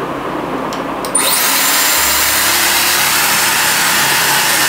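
Hand-held hair dryer switched on about a second in, after two faint clicks, then running steadily with a loud, even hiss of blowing air as it dries a wet puppy.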